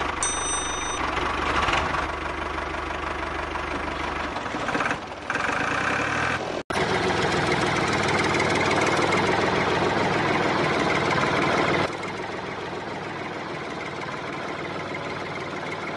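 Tractor engine running with a knocking beat, in stretches that cut abruptly from one to the next about five, seven and twelve seconds in.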